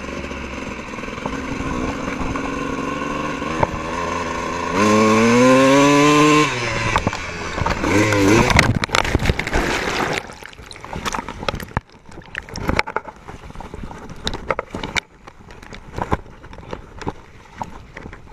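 Dirt bike engine running, then revving hard with the pitch climbing and falling, followed by a loud splash as the bike plunges into a water puddle. About ten seconds in the engine falls silent, drowned out by the water (hydrolocked), leaving sloshing water and scattered knocks.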